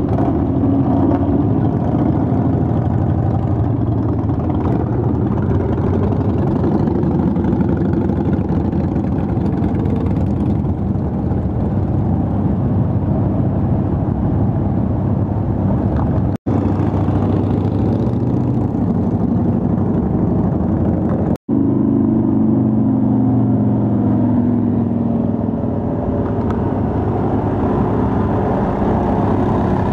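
Motorcycles riding past one after another on a gravel road, their engines running in a steady low rumble. Twice the sound cuts out for an instant.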